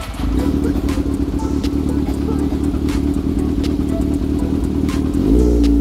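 Yamaha XJR400's air-cooled inline-four motorcycle engine running on its newly replaced carburettors: a steady idle, then a short blip of the throttle near the end.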